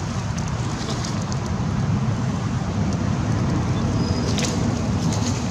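Wind rumbling on the microphone, a steady low buffeting with a few faint clicks near the end.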